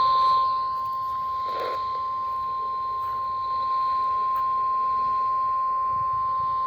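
NOAA Weather Radio 1050 Hz warning alarm tone: a single steady tone held unbroken, over faint radio hiss. It marks the start of an emergency alert broadcast.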